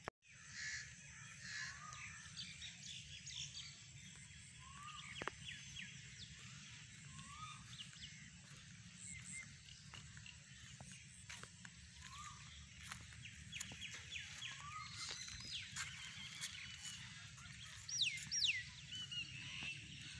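Several birds calling and chirping. A short rising note repeats every second or two, and a louder pair of sweeping whistled calls comes near the end.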